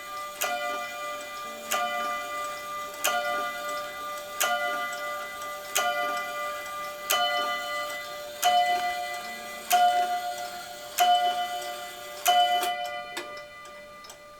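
A chain-driven clock striking the hour: slow, even strokes of the same ringing note about every 1.3 seconds, ten in all, each left to ring on. The strokes stop about 13 seconds in, leaving the faint tick of the clock.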